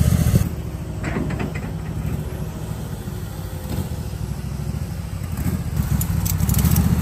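Engine idling with a steady low rumble; it drops in level about half a second in and builds again near the end.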